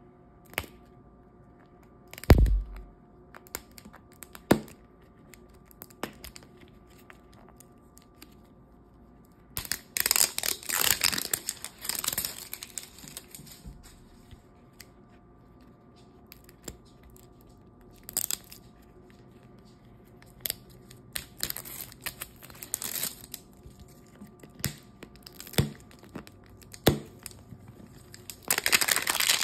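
Pink-striped plastic wrap being peeled and torn off a hard plastic toy capsule ball, in several bursts of tearing a few seconds long. Scattered clicks and taps of fingers on the hard plastic shell come between them, and there is a heavy thump about two seconds in.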